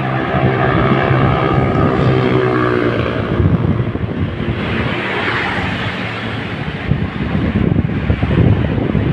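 A vehicle engine on the move, its pitch falling slowly over the first few seconds as it eases off. After that, road and wind rush take over, with wind buffeting the microphone.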